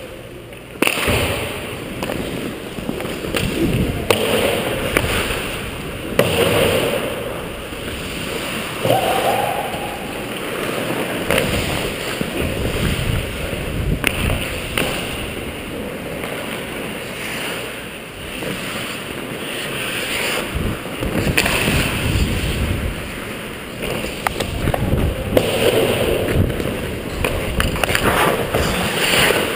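Ice hockey skates carving and scraping on the ice, heard through a helmet-mounted camera with rushing air and knocking on the mount, and sharp stick-and-puck clacks, the first of them about a second in at a faceoff.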